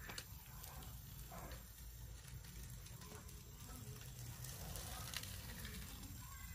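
Quiet outdoor background: a faint low rumble with light crackling and a few soft ticks.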